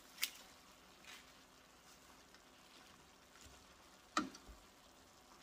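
Faint sizzling of ground beef and vegetables in a stainless steel skillet, with a few sharp clicks of a wooden spatula against the pan as spinach is stirred in, the loudest about four seconds in.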